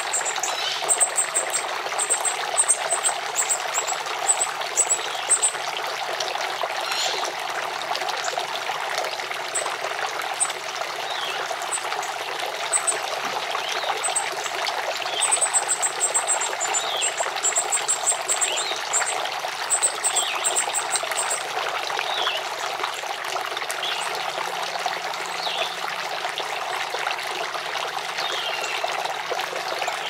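Garden water fountain trickling steadily. Over it, a northern cardinal fledgling gives rapid, very high begging chirps in two bouts, at the start and again about halfway through, with short falling chirps every second or two.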